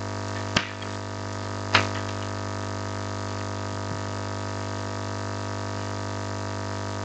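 Steady electrical mains hum in the audio feed, with a sharp click about half a second in and a brief noise near two seconds.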